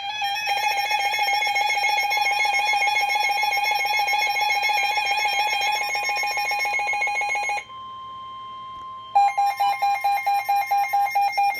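Emergency Alert System attention tones: a loud, steady two-tone alert for about seven and a half seconds, then a quieter single higher tone for about a second and a half, then the alert tone again, pulsing about four times a second. They signal the start of a severe thunderstorm warning.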